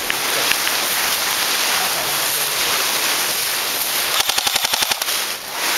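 A short full-auto burst from an airsoft electric gun about four seconds in, a rapid even rattle of about a dozen shots in one second, over a steady hiss.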